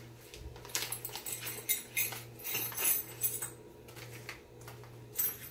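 A small plastic parts bag rustled and crinkled by gloved hands, in uneven bursts of crackling that ease off after the first few seconds, with one more near the end.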